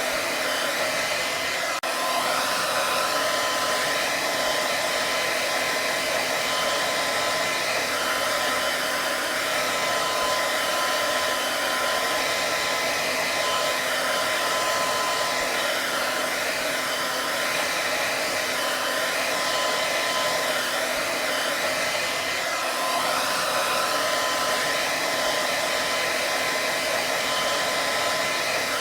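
Hair dryer running steadily: an even rush of blown air with a faint steady whine in it. There is a momentary dip in level about two seconds in.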